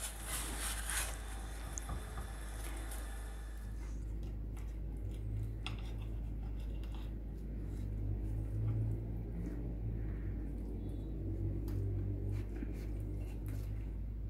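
Burrito on a hot flat iron griddle (tawa) with a faint sizzle and a metal spatula scraping for the first few seconds. Then a knife cutting through the toasted burrito on a glass plate, with soft scrapes and scattered light clicks of the blade against the glass.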